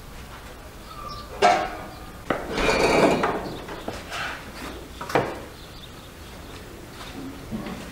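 Knocks and clatter of kitchenware on wood: a knife cutting dough against a wooden board, with sharp taps and a longer rattling clatter in between.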